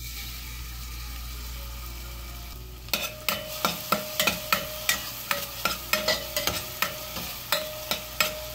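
Ground green chilli, curry leaves, ginger and garlic sizzling in hot coconut oil in a stainless steel pressure cooker. About three seconds in, a steel spoon starts stirring, knocking and scraping against the pot about three times a second with a light metallic ring.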